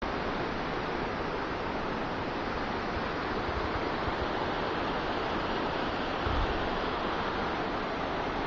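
Steady rushing noise, even and unchanging, with a couple of brief low bumps near the middle.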